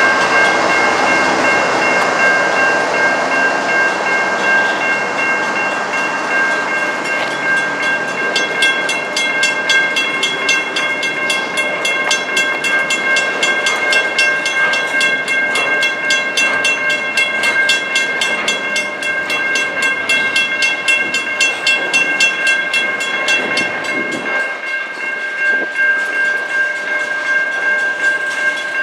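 Train rolling past with steady wheel and rail noise, a few steady high-pitched ringing tones held throughout, and a fast, regular ticking that comes in several seconds in.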